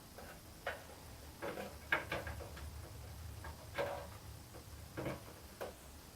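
Light clicks and knocks, about seven of them at uneven intervals, a few with a short metallic ring, from a metal PC case being handled and turned around.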